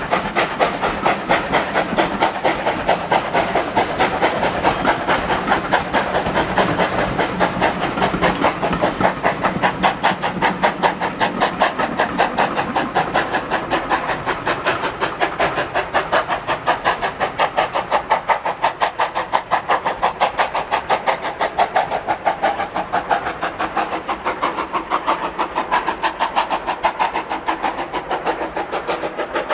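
Steam locomotive hauling coaches and working away, its exhaust chuffs coming in a fast, even beat of about five a second over a steady hiss. The beats slowly lose their sharpness as it draws away.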